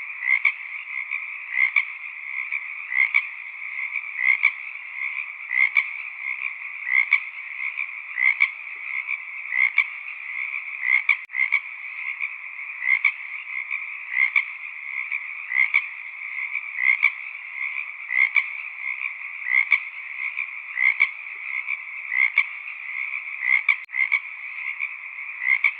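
Chorus of frogs calling: a steady high-pitched calling with a louder call repeating about every second and a half.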